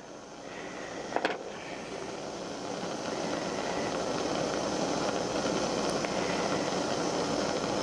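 Handheld gas blowtorch on a screw-on canister burning with a steady hiss that builds over the first few seconds. It is heating a bolt held in pliers in the flame. A single sharp click about a second in.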